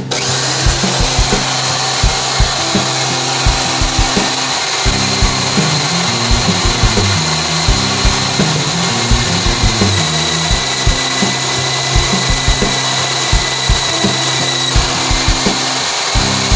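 Electric drill running steadily with a high whine as it bores a hole through a trailer's I-beam web, starting abruptly at the beginning. Background music with a steady beat plays underneath.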